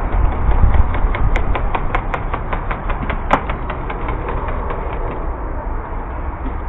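Airsoft gun firing a rapid string of sharp shots, about six or seven a second for a couple of seconds, the last one loudest, over a steady low rumble.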